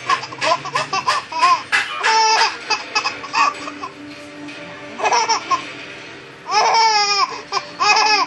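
Toddler laughing in repeated bursts of rapid giggles, with a short lull in the middle and high, squealing laughs again near the end.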